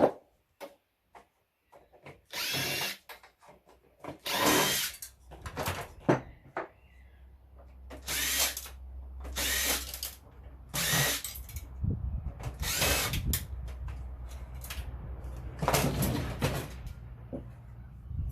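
Power drill driving screws out of a computer case in short runs, about seven in all, each spinning up and winding down. A low wind rumble on the microphone sits underneath.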